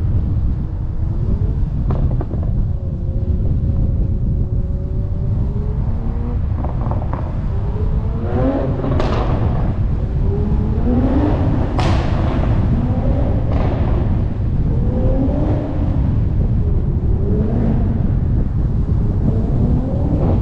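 Toyota Supra's B58 turbocharged inline-six engine under a deep exhaust rumble, revs climbing slowly at first, then rising and falling over and over from about eight seconds in, with a few sharp exhaust pops among the revs.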